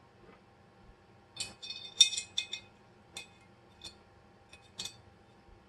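Small steel parts of a 1911 pistol clicking and clinking against each other and the frame as it is put back together by hand: a quick cluster of sharp clinks about a second and a half in, then single clicks about a second apart.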